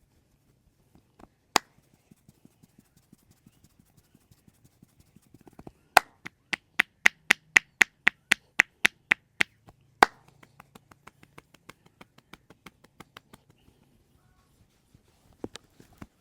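A masseur's hands striking in percussive massage: light taps about three a second, then a run of about sixteen loud, sharp claps at about four a second, then light taps again. A single sharp click comes before the taps.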